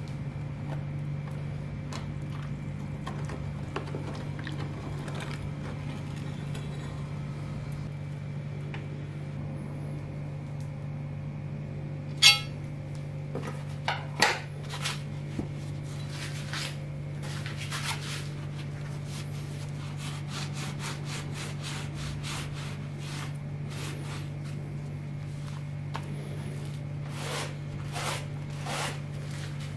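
A sharp metallic clink about twelve seconds in and a few lighter knocks, then repeated rubbing strokes as a rag wipes a wet steel axe head, over a steady low hum.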